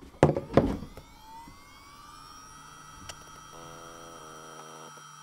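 Samsung 2.5-inch laptop hard drive spinning up with its replacement controller board: a whine rising in pitch for a second or two, then holding steady as the platters reach speed, with a click about three seconds in. A few knocks near the start as the drive is handled and connected.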